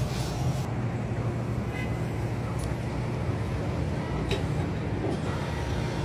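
Steady city traffic noise with a low hum, broken by a few short clicks.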